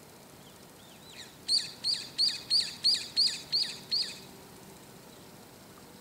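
Brown-eared bulbul calling: a couple of faint notes, then a quick series of eight loud, high, sweeping notes, about three a second, that stops after about two and a half seconds.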